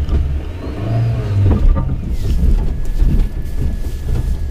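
Suzuki Jimny 4x4 driving over a rough, rutted green lane: steady engine and drivetrain rumble with knocks and rattles as it crosses uneven ground. A faint high whine rises and falls, then holds steady.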